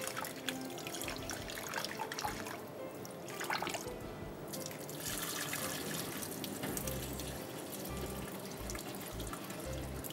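Raw rice being rinsed in water by hand: water running, sloshing and splashing as the rice is washed and the water poured off, with a couple of short breaks a few seconds in.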